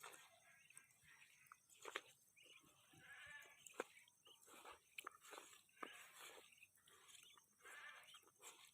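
Ducks quacking faintly over and over, short raspy calls coming every second or so, with a few sharp clicks among them.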